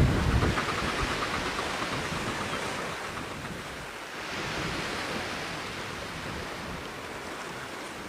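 Steady rushing noise of wind and sea surf, with low wind buffeting on the microphone in the first half second.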